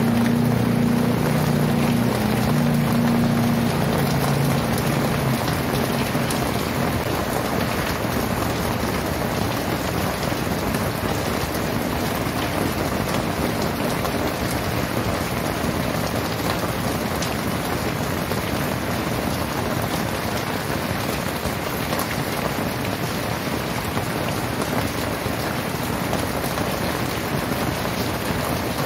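Very heavy rain pouring down steadily, without thunder. A low hum underneath it fades out in the first five seconds or so.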